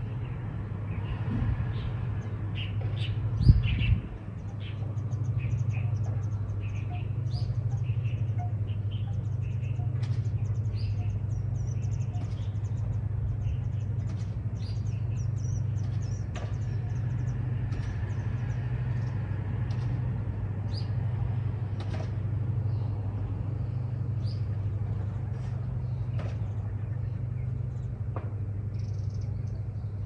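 Small birds chirping in short, scattered calls over a steady low hum. A single thump sounds about three and a half seconds in.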